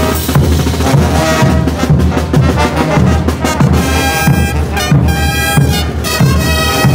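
Bolivian street brass band playing: trumpets, trombones and sousaphones carry a melody over a steady bass drum beat of about two strokes a second. The brass holds stronger sustained notes about four seconds in.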